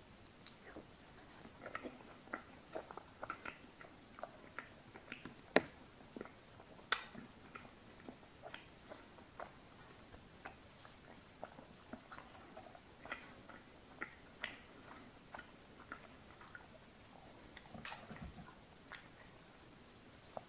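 Close-miked mouth sounds of eating a pink berry-chocolate ice cream bar: soft bites into the frozen bar, lip smacks and chewing, a steady run of small sharp clicks, with two louder snaps about six and seven seconds in.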